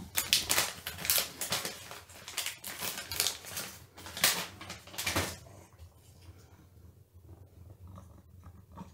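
A cat being given a treat from a pouch: rapid, irregular clicking and rustling for about five seconds, then only faint scattered ticks.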